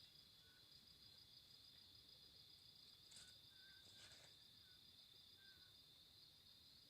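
Faint, steady high-pitched insect trilling from the forest at night, with a few soft short chirps and two light ticks about halfway through.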